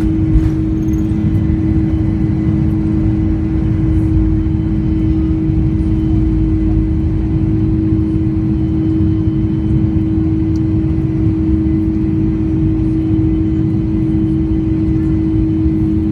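Boeing 747-400 jet engines and airflow during takeoff: a loud, steady rumble with a constant low hum running through it.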